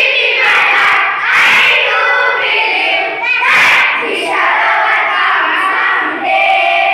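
A class of schoolchildren singing an action song together, loud and continuous.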